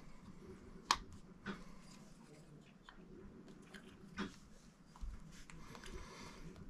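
Faint clicks and taps of metal parts being handled as the float bowl is fitted onto a Mercury outboard carburetor, the sharpest click about a second in, with soft rustling of hands on the parts.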